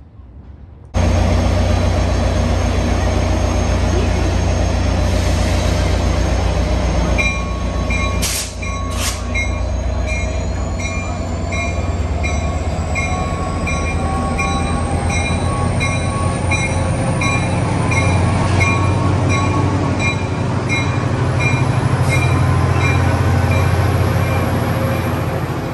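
Caltrain diesel locomotive running at a station with a steady low rumble, its engine note rising as it pulls its bilevel cars away. A bell clangs at an even pace of about one to two strokes a second from roughly a quarter of the way in. There are two short air hisses soon after, and a whine rising in pitch as the train gets moving.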